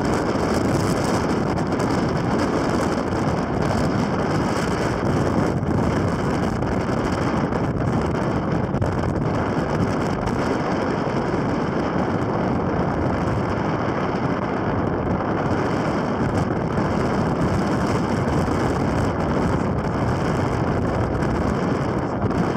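Strong gale-force wind blowing straight across the microphone, a steady loud roar that drowns out everything else.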